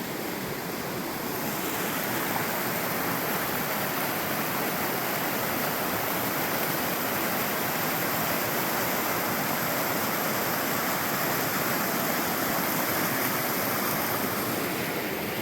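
A mountain creek rushing steadily, its level rising slightly about a second and a half in, then holding.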